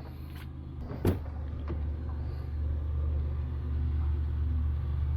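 A low, steady rumble that grows a little louder after the first second, with a single sharp knock about a second in.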